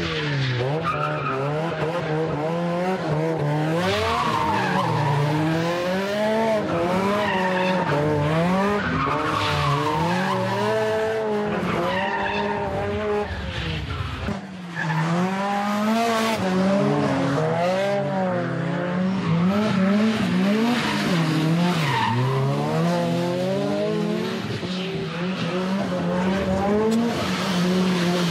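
Drift car's engine revving up and down again and again through a series of slides, with tyres skidding and squealing. The sound dips briefly about halfway through.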